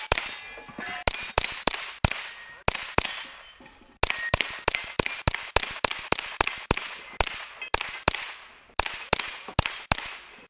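Suppressed KelTec Sub2000 Gen2 carbine firing about 25 sharp shots in quick strings of two to three a second, with brief pauses between strings, at steel targets until the magazine runs empty.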